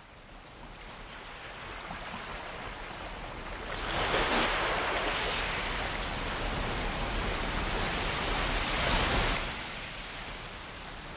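A steady rushing hiss, like rain or running water, that fades in, grows clearly louder about four seconds in and drops back about nine and a half seconds in.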